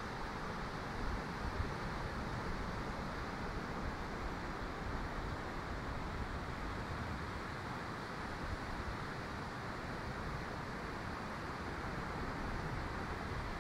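Steady rush of surf breaking on a sandy beach, with a couple of low buffets of wind on the microphone about a second in.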